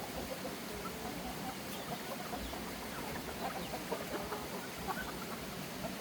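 Chickens clucking softly, a scatter of short clucks over a steady background hiss.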